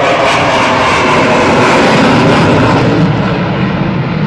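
Eurofighter Typhoon's twin jet engines, loud as the fighter passes just overhead. The noise is at its fullest about two seconds in, then its higher part fades and it turns into a lower rumble as the jet moves away.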